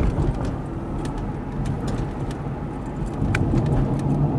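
Road and engine rumble of a moving car heard from inside the cabin, steady and low, with light scattered clicks and rattles and a short squeak about three seconds in.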